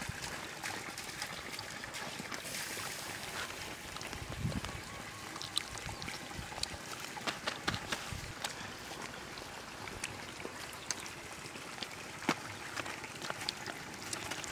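Raw quail being gutted and cleaned by hand on a banana leaf: scattered soft clicks and wet squelching handling noises over a steady outdoor hiss, with a couple of dull low bumps.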